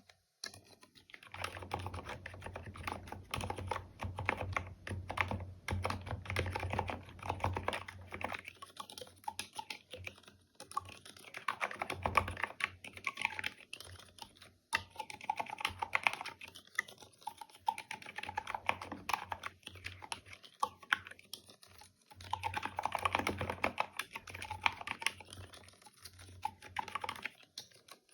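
Typing on a mechanical keyboard with stock, unlubricated Gateron Black silent linear switches: dense runs of soft, damped keystrokes in bursts of a few seconds with short pauses between.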